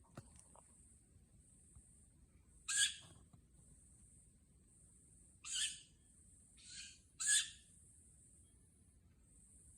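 Unidentified birds giving short, high squeaky calls at night, four calls in a few seconds, as several birds answer one another from different spots.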